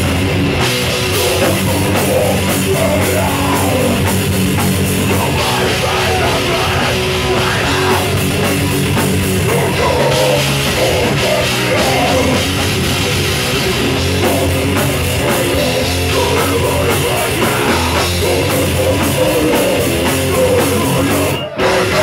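Live punk band playing loud and fast, with distorted guitar, bass, pounding drum kit and shouted vocals. The music cuts off suddenly near the end.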